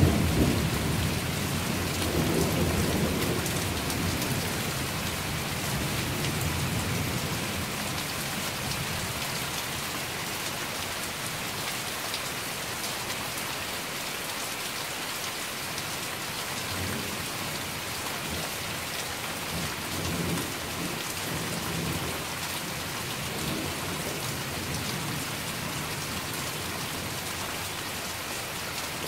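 Steady rain falling, with a roll of thunder dying away over the first several seconds and fainter low rumbles of thunder later on.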